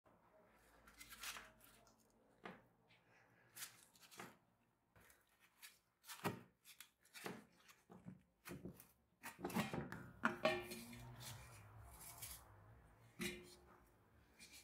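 Gloved hands handling and lifting the rusty metal lid of an old butter churn's container: scattered light knocks, scrapes and rustles of metal, with a cluster of louder clunks about ten seconds in.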